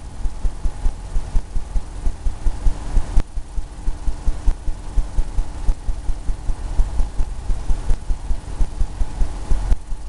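Oil paintbrush working on a canvas: a quick, uneven run of low thumps, about three a second, as the brush dabs and strokes against the stretched canvas.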